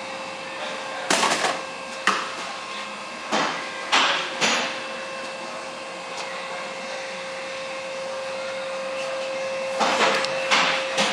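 AW32 hydraulic fluid pouring from a five-gallon pail through a funnel into a car lift's power-unit reservoir, with several sudden louder glugs. A steady hum runs underneath.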